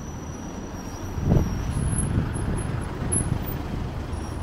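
City street traffic: a motor vehicle's engine rumbling close by, with one brief louder thump a little over a second in.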